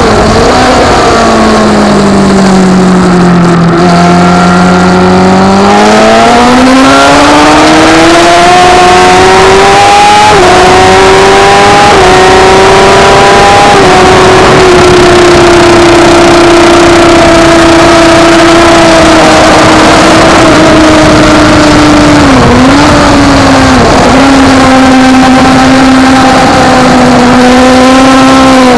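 Kawasaki ZX-10R inline-four racing engine at full race pace, with heavy wind rush. The revs fall for the first few seconds into a corner, then climb hard, with gear changes about ten and twelve seconds in. They hold high along the straight, with two brief dips in revs late on before settling again.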